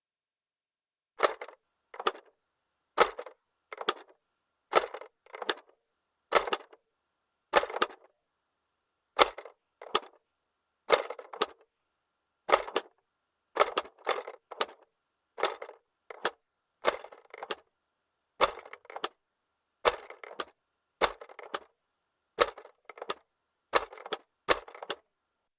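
Plastic clicking from the mechanism of a 1975 Tomy owl toy clock worked by hand. Short rattling bursts of a few quick clicks each come about once a second, starting about a second in.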